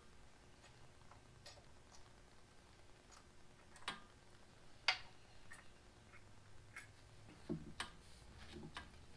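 Scattered light clicks and taps, about ten spread unevenly, the sharpest about five seconds in, with two soft low thumps near the end. They come from bolts being handled and started by hand to mount a hydraulic belly pump (Lift-All) under a tractor.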